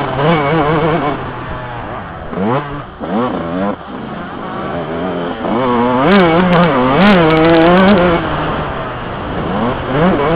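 Two-stroke Yamaha YZ125 motocross bike, close up from the rider's helmet, revving up and down through the gears on a dirt track. The throttle closes and the pitch drops around three seconds in, then it pulls hard again and is loudest around six to eight seconds in, with a few sharp knocks there.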